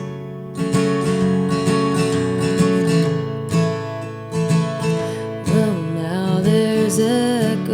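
Acoustic guitar strumming a slow folk-country accompaniment between sung lines, with long held notes sustained underneath.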